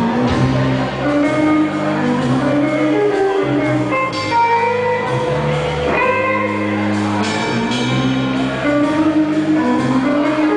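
Live band music: electric guitar, upright bass and drums playing together, with the bass holding long low notes under the guitar.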